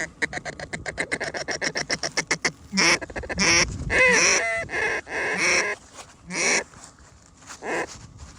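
Goose calls: a fast, even run of short clucks for about two and a half seconds, then a series of longer honks, with a few more single calls near the end.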